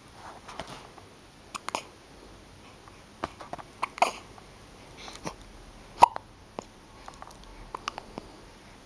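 Repeated hiccups: short, sharp catches every second or two, the loudest about six seconds in.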